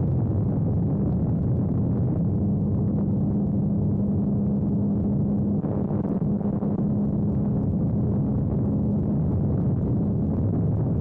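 DA100 twin-cylinder two-stroke gasoline engine of a giant-scale RC biplane running steadily at an even pitch, heard from on board the model, with a brief dip in loudness about halfway through.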